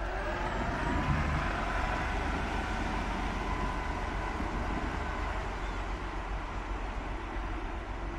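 Small boats' motors running steadily out on the water: a continuous hum with faint whining tones on top.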